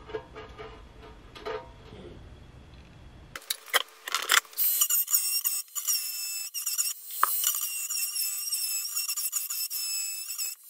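A few handling clicks, then about four seconds in a high-speed rotary tool starts up and runs with a high, wavering whine, grinding at the edge of the drain hole in a metal oil pan so that a weld-in fitting will sit in it.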